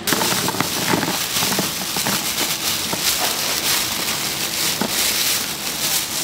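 Hot oil sizzling and crackling in a large cauldron fryer, a dense, steady crackle that starts abruptly.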